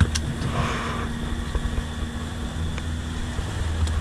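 A small fishing boat's engine running steadily with a low hum, with a few light clicks.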